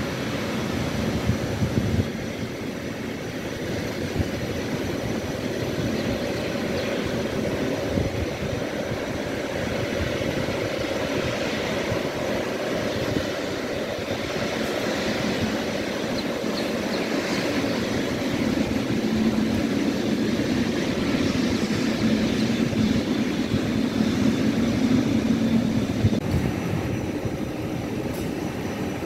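Steady rumble of an ATR 72-500 turboprop cabin, with a low engine drone that grows louder over the second half.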